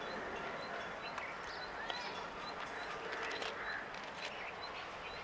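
Short bird calls and chirps over steady outdoor background hiss, with a faint high tick repeating less than a second apart.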